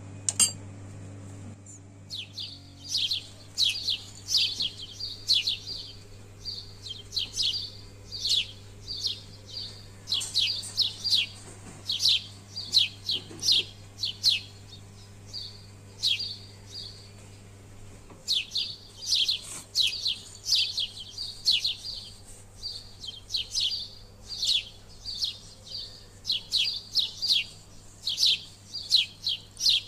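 A bird chirping in quick runs of short, high, falling chirps, several a second, with a pause about halfway through. A sharp click just after the start is the loudest single sound.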